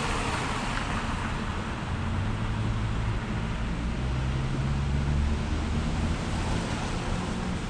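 Steady rumble of downtown traffic, with the low hum of a vehicle engine swelling for a few seconds in the middle.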